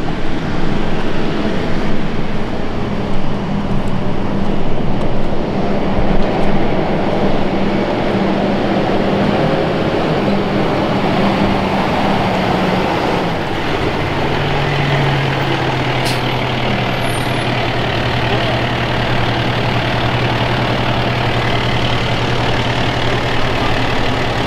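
Diesel dump truck engine running close by, with an uneven rushing noise over the first several seconds. About halfway through its note drops and then holds at a steady low idle.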